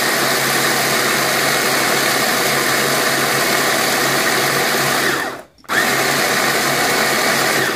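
Russell Hobbs electric mini chopper running at full speed, its blades grinding leftover granola, nuts and seeds into a fine powder. It runs for about five seconds, stops for a moment, then starts again and runs about two seconds more before cutting off.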